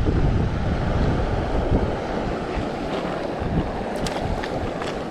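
Wind buffeting the microphone over a steady rushing noise, with a few faint clicks near the end.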